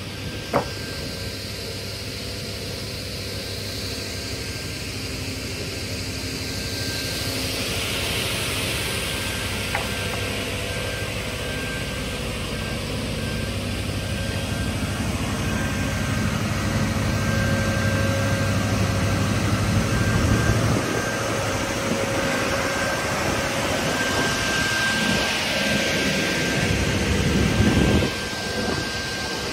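Raimann ProfiRip KR 310M single-shaft multi-rip saw with track feed running with a steady whine. It grows louder in two stretches, about halfway and near the end, as timber is ripped through it. There is one sharp click near the start.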